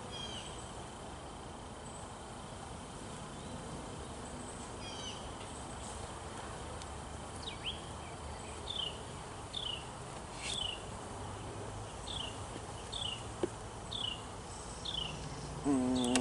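Honeybees humming around an open hive, with a bird repeating a short falling chirp about every second from about halfway through. Near the end a single louder buzz passes close.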